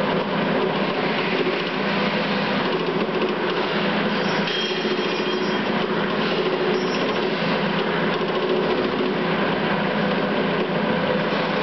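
Trimming machine running steadily: a dense, continuous mechanical noise over a constant hum.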